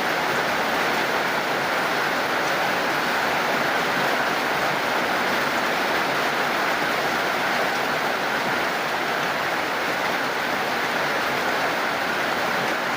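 Steady, heavy rain falling, an even rushing hiss with no single drops standing out.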